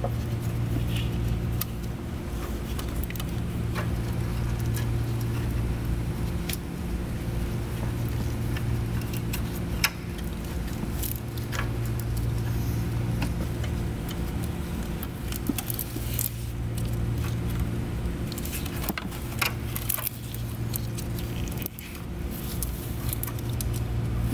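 Irregular small clicks and rattles of a new rubber timing belt being worked by hand around the crankshaft gear of a Volvo five-cylinder engine, over a steady low background hum.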